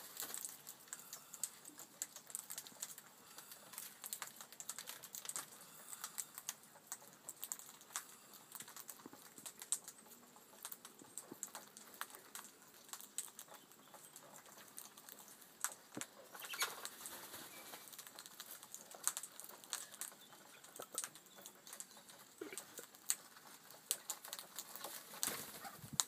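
Australian king parrots pecking and cracking seed on a wooden railing: an irregular scatter of small, sharp clicks and taps.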